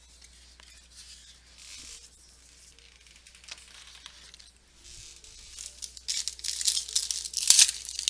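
Trading-card pack wrapper being handled and torn open: soft rustling at first, then loud tearing and crinkling from about six seconds in.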